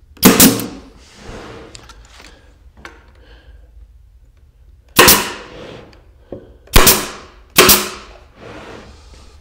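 Nail gun firing four shots, each a sharp crack with a short decaying hiss: nails driven through the cabinet side into a 4-inch hanging cleat. One shot comes at the start, then three more close together about five to eight seconds in.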